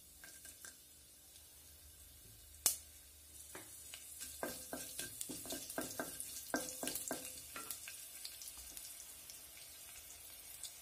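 Garlic and mustard seeds frying in hot oil in a pot: a quiet sizzle with a sharp click a little over two seconds in, then a run of crackles and light knocks as a wooden spatula stirs them.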